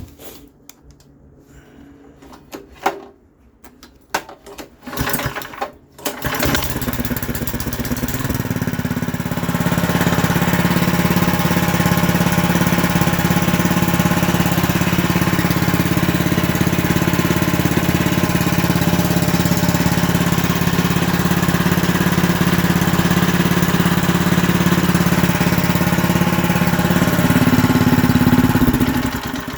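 Lifan 196cc single-cylinder go-kart engine fitted with a Predator 212 cylinder head: a few sharp pulls on the starter, then it catches about six seconds in and runs steadily, running properly after a restriction in the carburetor's throttle linkage was cleared. Near the end it revs up slightly, then cuts off.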